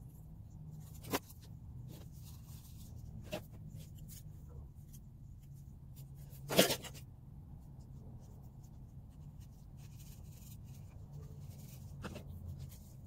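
Scissors snipping cardboard and the light rustle and clatter of plastic nursery pots and cardboard labels being handled, with a few sharp clicks and one louder clack about six and a half seconds in, over a faint low hum.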